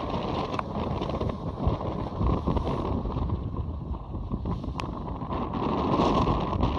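Strong wind buffeting the microphone and rough seas rushing and breaking along the hull of a small sailboat beating through heavy weather, a steady low rush that swells louder a couple of times.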